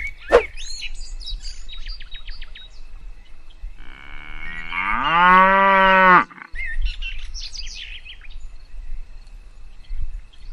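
A cow mooing once, one long call of about two seconds that starts about four seconds in and rises in pitch before holding, with birds chirping around it.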